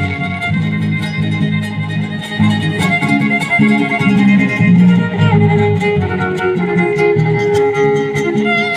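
Son huasteco played by a violin over strummed guitars, an instrumental passage between sung verses.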